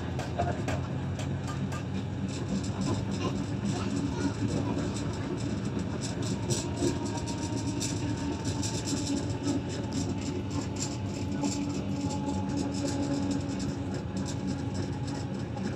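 Museum tram running along the track: a steady rumble of wheels on rails with a low hum, and a run of sharp clicks midway through.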